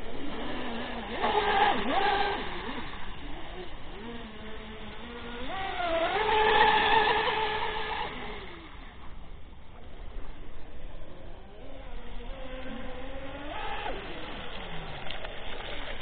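Twin brushless electric motors of a Minicat 820 EP RC catamaran whining as it speeds across the water, the pitch rising and falling with the throttle. Loudest about six to eight seconds in.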